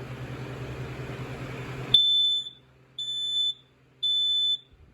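Battery-operated Kidde PI2010 smoke alarm being tested, sounding three loud, high-pitched beeps about half a second long and a second apart in the temporal-three evacuation pattern. A steady hiss with a low hum fills the first two seconds and stops as the alarm starts.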